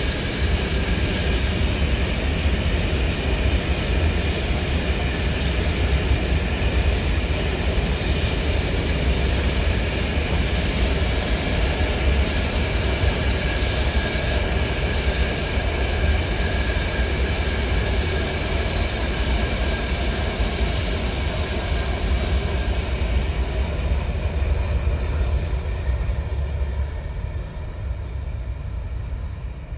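Long freight train of open-top wagons rolling past: a steady, loud low rumble of wheels on rail with a thin steady high ringing over it. It falls away near the end as the last wagons pass and move off.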